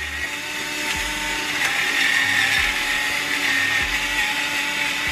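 Electric pepper grinder running, its small motor giving a steady hum with a grinding hiss as it grinds peppercorns into fresh cracked pepper.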